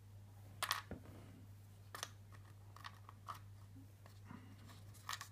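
Faint, scattered clicks and taps of small metal lock pins being handled and set down, about six in all, over a steady low hum.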